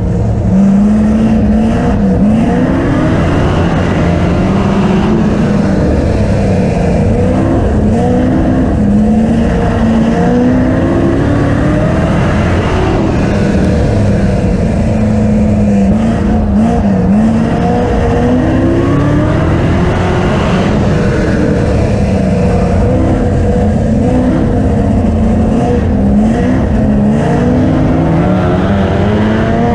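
Speedway race car engines revving and easing off as the cars lap the oval, the pitch rising and falling again and again.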